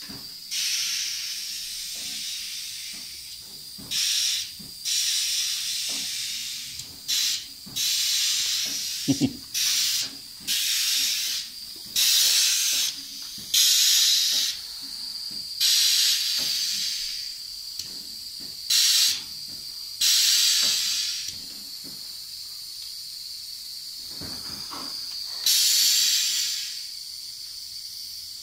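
Compressed air hissing through a hand valve on the air line to a scooter's pneumatic air-ride cylinder, in about a dozen bursts from a fraction of a second to a second and a half long, each starting and stopping sharply, over a fainter steady hiss.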